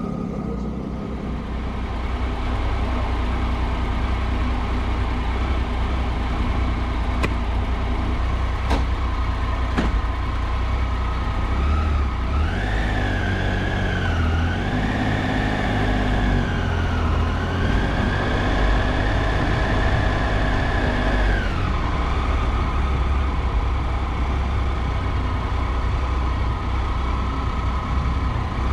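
Triumph Tiger 800 inline-triple motorcycle engine running at speed under a heavy rumble of wind and road noise. About halfway through, the engine's whine climbs in pitch, wavers, holds steady for a few seconds, then drops. It starts climbing again at the very end.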